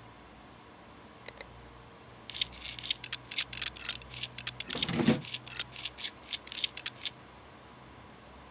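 A rapid run of small clicks, scrapes and rustles of something being handled, lasting about five seconds, with a louder knock a little past the middle.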